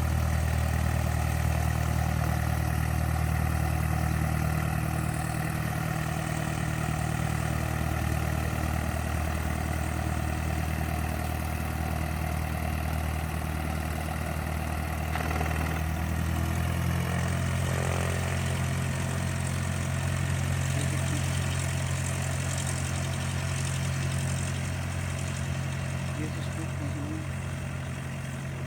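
Cessna 152's four-cylinder Lycoming piston engine and propeller running steadily at low taxi power. The engine note shifts slightly about two-thirds of the way through.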